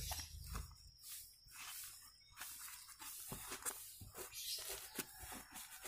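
Faint rustling and light scattered taps of hands handling a new tan tactical boot, turning it over and gripping its fabric upper and sole.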